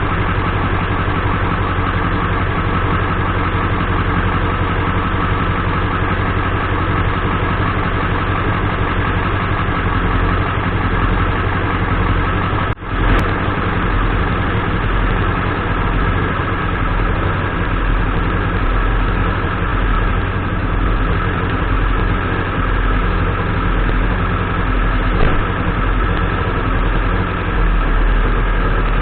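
Ford 7.3 Powerstroke V8 turbo diesel idling steadily, with a brief break in the sound about 13 seconds in.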